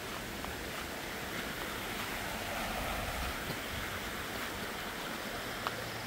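Steady rushing of flowing water, with a couple of faint ticks near the end.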